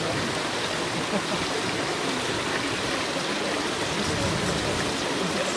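A steady, even rushing noise, like running water.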